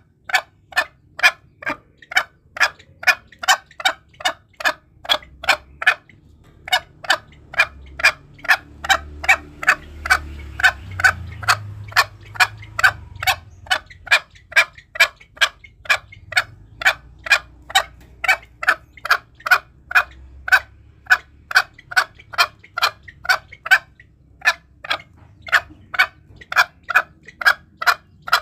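Green junglefowl calling over and over, short calls about twice a second in long runs broken by brief pauses; a recorded junglefowl lure call.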